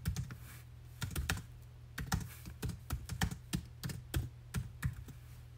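Typing on a MacBook Air laptop keyboard: irregular, quick keystroke clicks.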